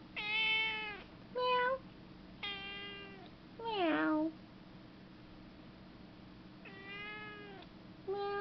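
Domestic cat meowing repeatedly, about six meows: longer drawn-out calls mixed with short ones, several sliding down in pitch at the end.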